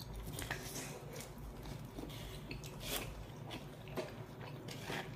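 A person biting into and chewing pizza kebab, with a bite at the start and soft, irregular crunching as it is chewed.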